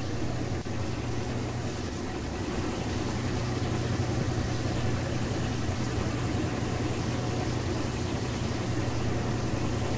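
Two washing machines running together, an Amana and an Elite Series 4: a steady motor hum under a continuous churning wash noise.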